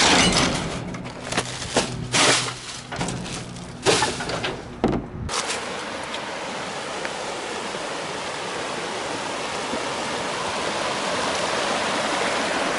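A string of sharp knocks and clatters. About five seconds in, these cut to river water rushing steadily.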